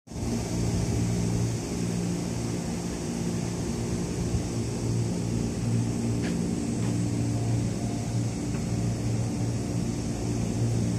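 A stopped JR local electric train idling at the platform, its onboard equipment giving a steady low hum with several held tones and a faint high whine.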